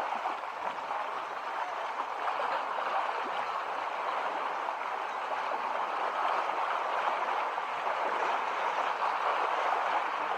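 Steady rushing, splashing water.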